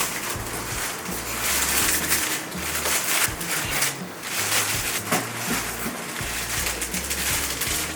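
Background music with a steady bass line, over rustling and light knocks of a turntable's cardboard box and packing being handled.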